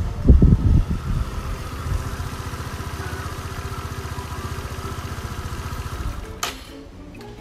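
Small motor scooter engine, loud at first as the scooter pulls up, then idling steadily with a fast, even putter. Near the end a sharp click comes as the engine sound falls away.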